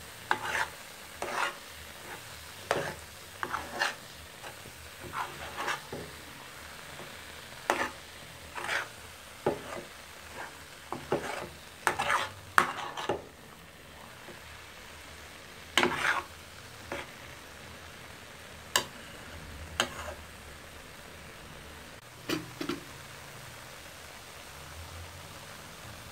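A metal spoon scraping and knocking against an aluminium pan while stirring scrambled egg and tomato, over a steady sizzle of frying. The strokes come irregularly, about one a second at first, and grow sparser in the second half.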